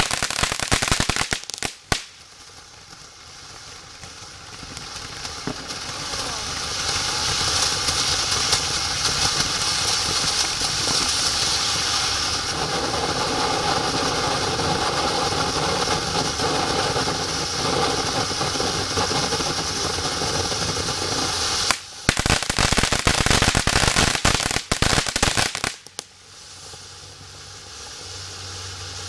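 Consumer firework ground fountains spraying sparks. Dense crackling comes first, then a fountain's hiss swells over several seconds and holds steady. A second run of loud crackling comes about 22 seconds in, and a fresh hiss builds near the end.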